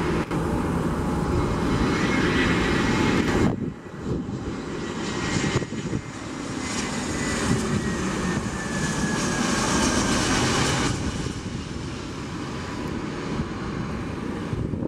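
Airbus A320-family jet airliner's engines on low-thrust final approach, passing low overhead: a steady loud rush of jet noise with a high whine that slowly falls in pitch.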